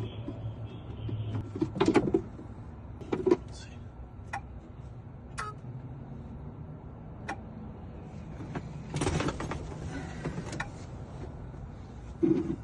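Clicks and knocks of hands working a portable key-cutting machine whose motor won't kick on, over a faint steady hum, with a short rough whirring burst about nine seconds in. The motor cuts out from a loose wire inside, as the locksmith suspects.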